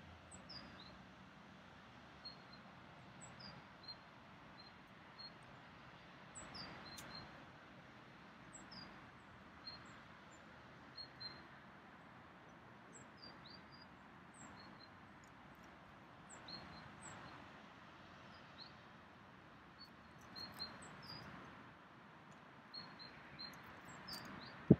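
Small birds giving many short, high chirps, scattered irregularly throughout, over a soft rushing noise that swells and fades several times.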